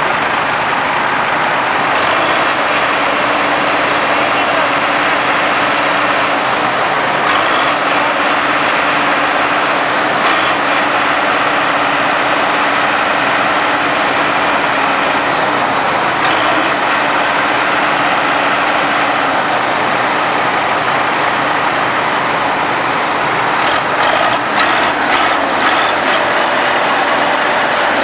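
Farm harvest machinery engines running steadily, with a few short clicks or knocks over the top.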